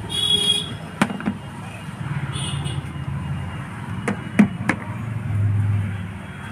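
Clicks and knocks of a digital multimeter being handled and its test probes brought to an inverter circuit board: two clicks about a second in and three more around four to five seconds in, over a steady low hum. Two short high-pitched tones sound, one at the start and one about two and a half seconds in.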